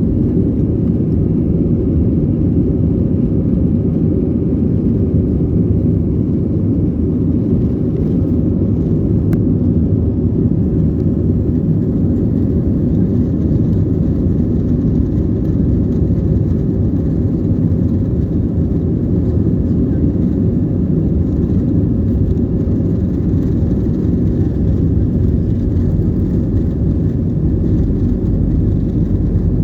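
Steady low rumble of a jet airliner's engines and rushing air during departure, unchanging in level and pitch throughout.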